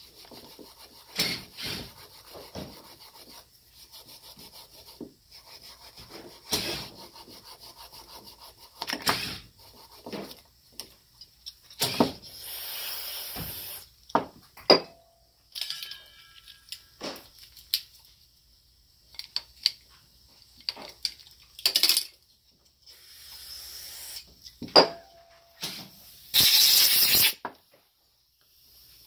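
Small parts of a Mikuni carburetor's fuel assist pump being handled and taken apart: scattered clicks, knocks and rubbing of metal and plastic. There are two hissing bursts, one about a second and a half long near the middle and a louder, shorter one near the end.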